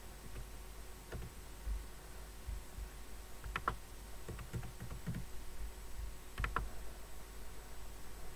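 Typing on a computer keyboard: scattered keystrokes, with two louder clacks about three and a half seconds in and again about three seconds later, over a low steady hum.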